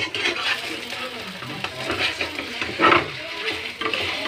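Metal spatula scraping and pushing beaten eggs around a metal frying pan while the eggs sizzle in hot oil, in repeated strokes with a louder scrape about three seconds in.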